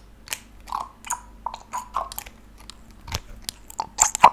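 Glass dropper bottle of serum handled close to the microphone: irregular taps, clicks and small glassy clinks from the bottle and its dropper cap, loudest just before the end.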